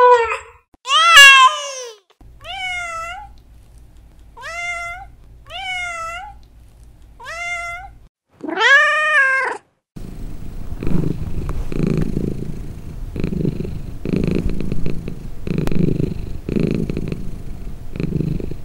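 Domestic cats meowing: a loud falling meow about a second in, four short quieter meows, then another loud meow. After that a cat purrs steadily, the purr pulsing about once a second with each breath.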